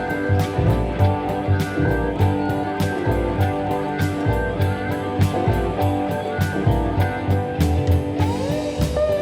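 Background music: a guitar-led, blues-style track over a steady drum beat, with a slide up in pitch near the end.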